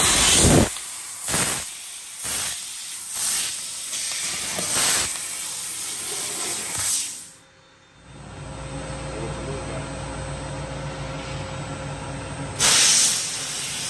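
3 kW laser cutter's cutting head blasting assist gas in short hissing bursts, about six in the first seven seconds, as it pierces and cuts holes in sheet metal. After a break about halfway, a steady low machine hum, then another loud hiss burst near the end.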